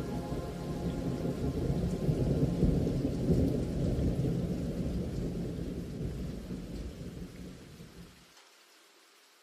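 Deep, rolling, thunder-like rumble that swells for about three seconds and then slowly fades. Near the end its low end cuts off abruptly.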